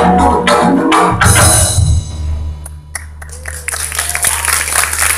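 Karawitan (Javanese gamelan) ensemble playing its last phrase, ending with a strong stroke about a second in and a deep low note that rings on. Audience applause starts about three seconds in.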